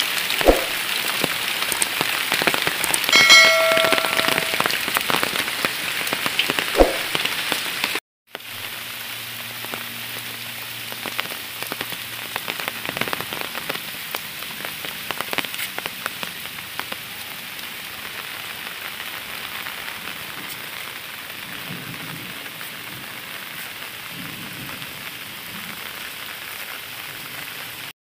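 Heavy rain falling on dense leaves and a wet brick path: a steady hiss with scattered drop patter. About eight seconds in the sound cuts out for a moment and returns softer. A brief high tone sounds about three seconds in.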